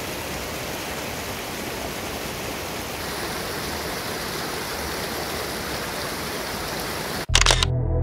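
Steady rushing of a fast mountain stream. About seven seconds in it cuts off abruptly and calm ambient music begins.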